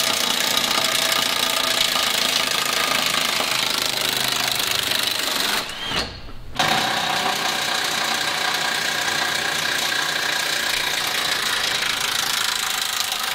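Cordless impact wrench hammering on bolts under a truck's front end, a fast continuous rattle that stops for under a second about six seconds in and then resumes.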